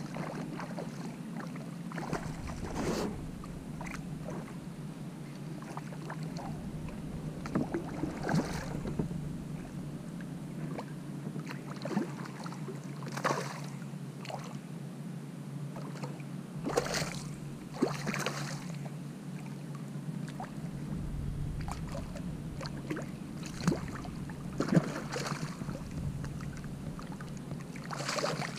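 Water lapping against a plastic fishing kayak's hull, with short splashes every few seconds from a hooked fish thrashing at the surface as it is reeled in. The last splashes are right beside the boat.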